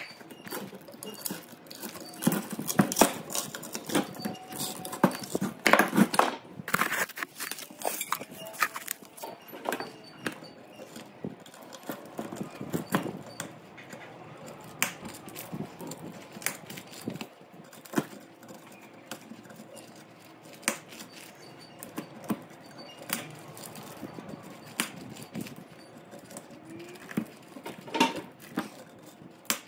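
Hand tools clinking, knocking and scraping on the metal of a burned three-phase electric motor's stator as the damaged copper windings are removed. A dense run of clinks and knocks over the first several seconds, then sparser single clicks.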